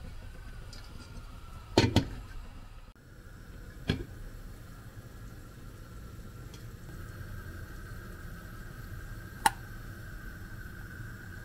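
Steady low rumble of a pot of meat broth on a gas burner coming to the boil, with a faint steady high tone. Sharp metallic clicks cut through it: a double click about two seconds in, one at about four seconds, and a single tap near the end as a spoon skims the foam.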